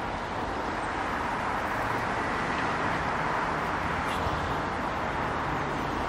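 Steady hum of distant road traffic, an even background noise with a low rumble underneath.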